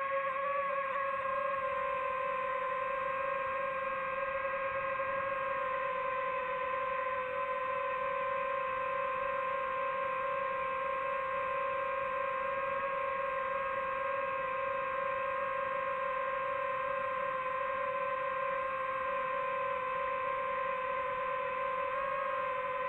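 DJI FPV drone's motors and propellers whining in flight: a steady, even-pitched hum with a few overtones, wavering slightly in pitch about a second in and again near the end.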